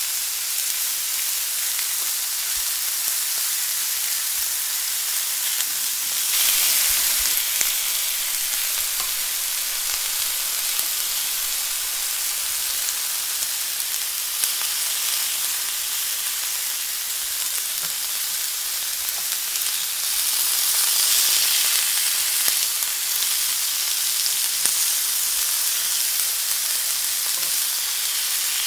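Shell-on shrimps sizzling steadily on a hot cast-iron griddle, with the heat switched off so they cook in the pan's residual heat. The sizzle swells louder twice, about six seconds in and again around twenty seconds.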